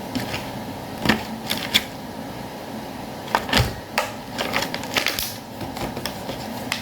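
Packaging being handled: irregular clicks, taps and short rustles, with one duller knock about halfway through.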